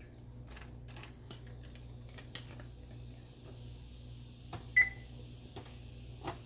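Finely chopped onions and habanero pepper sizzling softly in hot oil in a pot, with a few light clicks of a spoon. About five seconds in comes one short ringing ding, the loudest sound.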